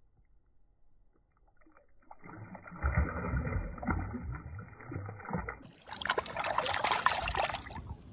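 Water sloshing and splashing with low, muffled rumbling thumps from about two seconds in, turning into brighter, crackling splashing near the end.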